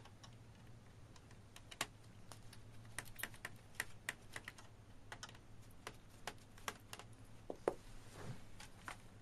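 Plastic snap clips of a Sony Vaio laptop's bottom case clicking loose as the case is pried off. The screws are already loosened. A faint, irregular series of many small clicks.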